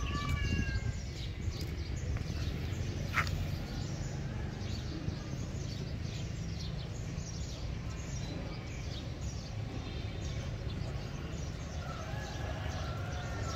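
Outdoor ambience: small birds chirping over a steady low background rumble, with one sharp high chirp about three seconds in.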